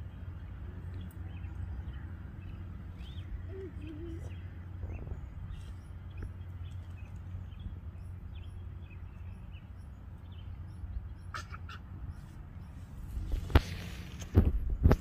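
Steady low wind rumble on the microphone, with faint, scattered bird chirps. Near the end come a few loud rustling bumps, typical of the camera being handled.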